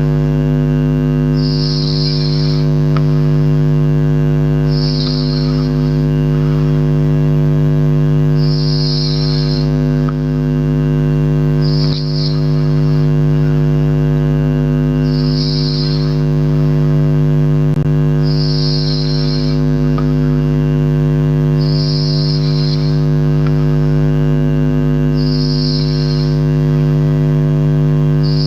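A sleeping person snoring, with a hissy breath about every three and a half seconds, over a loud, steady low hum.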